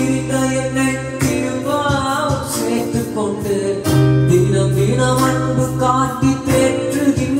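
A man singing a Tamil Christian worship song, accompanying himself on an electronic keyboard with sustained chords under the voice.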